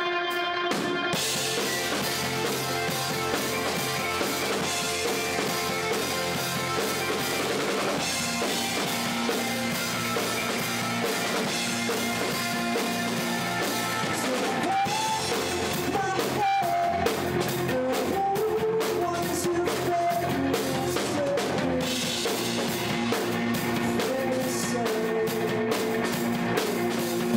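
A live rock band playing, with electric guitar and drum kit. A male voice sings the melody from about halfway through.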